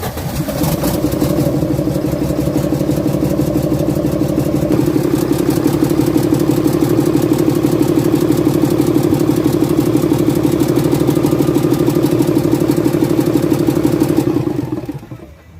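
Cummins common-rail diesel engine turning over with a steady, rhythmic clatter for about fourteen seconds, then winding down and stopping near the end.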